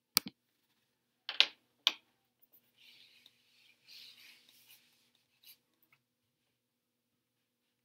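A sharp mouse click, then two louder clicks or knocks a second or so later, followed by about two seconds of soft paper rustling as a sheet is moved under a document camera, and one more small click near the end.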